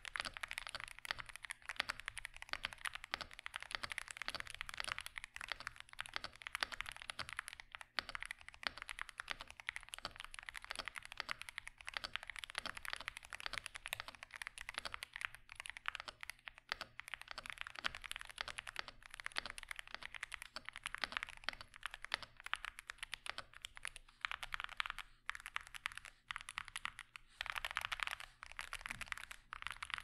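Akko MOD007B PC gasket-mounted, foam-filled keyboard with factory-lubed cream yellow magnetic switches being typed on steadily: a fast, continuous run of keystrokes with a few brief pauses.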